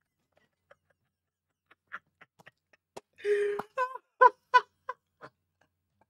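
A man laughing hard in a string of short, high-pitched bursts, starting about halfway through and fading out near the end.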